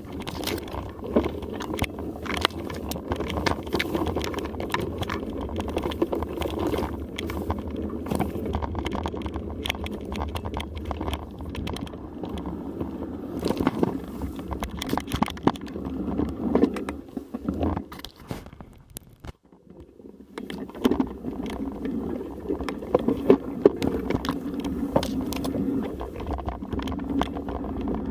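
Mountain bike riding over a rough dirt single track: a steady rumble of tyres on the trail with constant rattling and clicking from the bike, which drops away briefly about nineteen seconds in before resuming.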